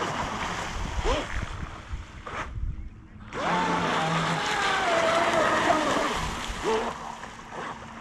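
Electric RC jet boat on a 6S battery running fast across the water: a high motor whine over water hiss. It cuts out briefly about two and a half seconds in, then comes back with a sharp rise and slowly falls in pitch.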